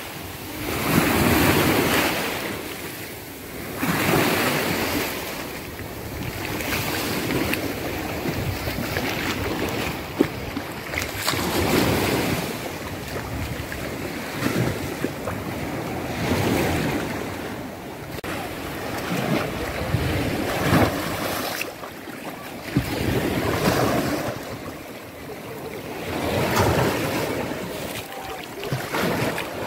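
Black Sea surf breaking and washing over a shallow stony shore, the wash swelling and drawing back every few seconds.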